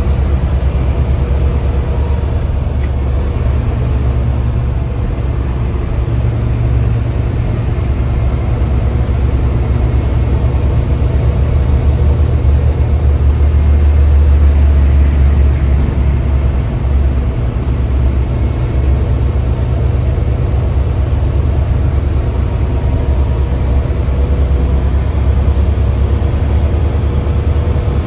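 Mercedes-Benz bus diesel engine running steadily under load, heard from inside the cabin as a deep drone that grows a little louder midway through.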